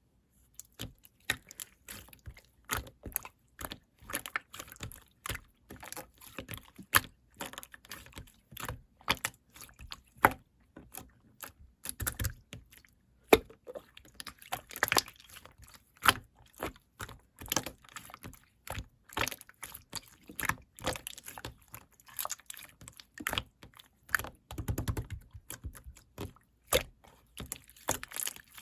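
Irregular run of sharp clicking taps, a few a second, some louder than others.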